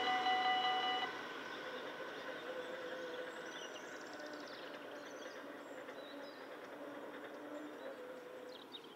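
Dutch level-crossing warning bells ringing and cutting off about a second in, just after a train has passed. A faint steady hum follows as the barrier arms rise, with a few faint bird chirps.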